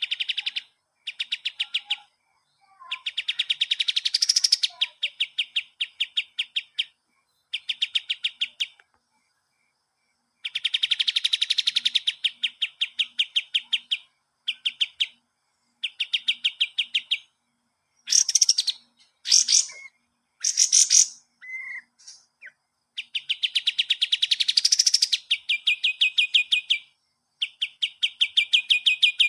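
Kapas tembak songbird singing a rapid-fire, rattling trill song: bursts of fast, evenly repeated notes lasting one to three seconds, separated by short pauses, with a few quick sweeping notes in between.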